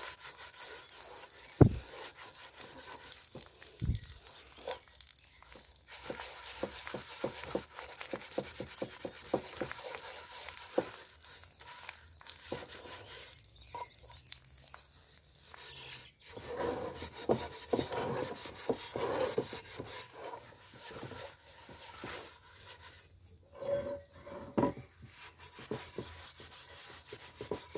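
Hands scrubbing a wet, rusty cast iron pot with a scouring pad: a scratchy rubbing with many small knocks and clicks of the pot. There are two sharp knocks in the first few seconds, and the rubbing grows louder about midway through.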